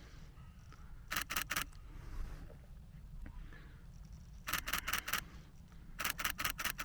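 Nikon Z6 II camera shutter firing in three short rapid bursts of about four to six frames each, continuous shooting.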